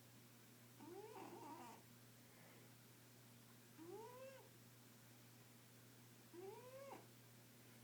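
A cat snoring, each breath giving a faint whine that rises and then falls in pitch. Three of these come at an even pace, about one every two and a half to three seconds.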